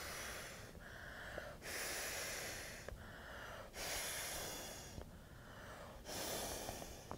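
A person mouth-inflating an Innate Respite Terra Firma inflatable pillow: about four long breaths blown into its spout, each with a quicker breath drawn in between.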